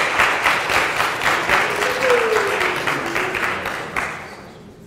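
Small audience applauding, the clapping thinning and dying away a little past four seconds in.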